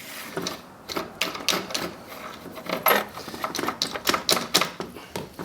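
Rubber mallet tapping repeatedly on the steel winch cable's end to seat it in the winch drum's anchor hole: about a dozen light, irregular knocks, roughly two a second.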